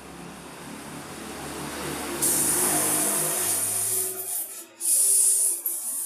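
A motor vehicle's engine approaching and passing, its note dropping as it goes by, with a loud hiss that starts suddenly about two seconds in, breaks off briefly and comes back near the end.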